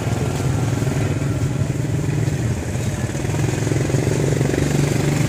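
Motorcycle engine running steadily, a low drone with no clear rise or fall.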